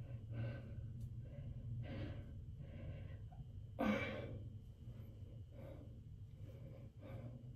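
Quiet breathing: soft exhales every second or two, with one louder, sharper breath about four seconds in, over a faint steady low hum.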